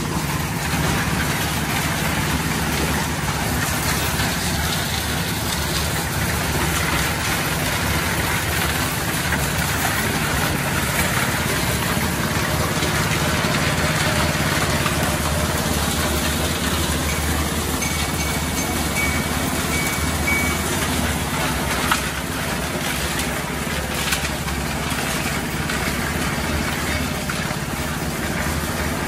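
Portable drum concrete mixer running with a steady engine drone.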